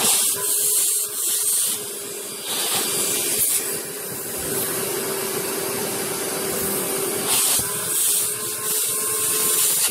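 Small homemade vacuum engine running and driving a Lego gearbox and wheel: a steady whirring hiss over a constant hum, swelling and dipping in loudness a few times as the gears are shifted.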